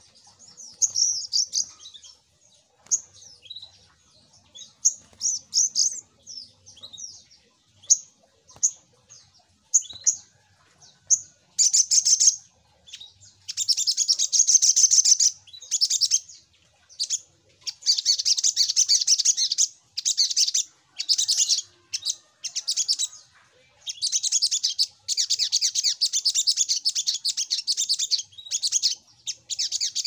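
Male olive-backed sunbird singing in a cage: high-pitched chirps, scattered at first, then long, fast chattering trills broken by short pauses.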